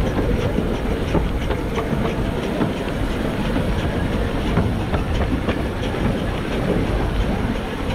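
15-inch gauge steam locomotive BVR No. 8 running at speed at the head of a heavy train, with a steady loud rumble and a rapid, irregular clatter of wheels on the track.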